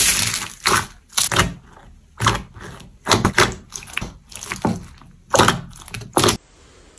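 Hands squeezing and pressing glossy slime mixed with foam beads, making about a dozen short, sharp squishing sounds in irregular succession. A brief stretch of foam beads crunching comes at the very start, and the squishing stops about six seconds in.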